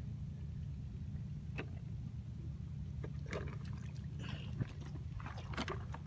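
Steady low rumble with faint water trickling and sloshing at the shore, and scattered sharp little clicks.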